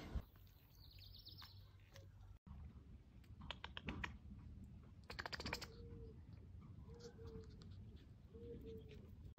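Faint clicking in short bursts from a Pomeranian puppy's claws tapping on paving stones as it trots. Three short faint low notes come later, about a second apart.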